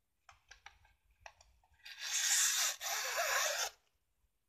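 Ribbon and cardstock handled while the ribbon is threaded through punched holes: a few light paper rustles and ticks, then two long scraping rasps one after the other near the middle, the loudest part.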